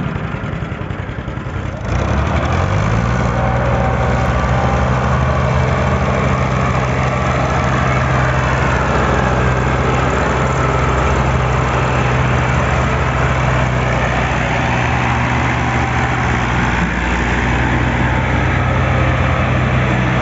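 Farm tractor diesel engine running steadily under load while pulling a heavily loaded sugarcane trolley. Its steady, even note sets in about two seconds in.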